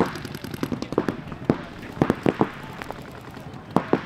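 Paintball markers firing in quick strings of sharp pops, several strings a second or so apart.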